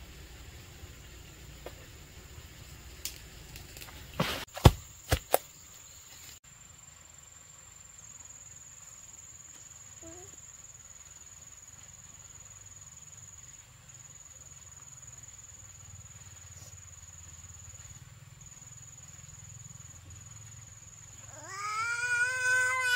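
Steady high-pitched insect trilling in the background, with a few sharp knocks about four to five seconds in. Near the end a small child starts crying loudly, the cry rising and falling.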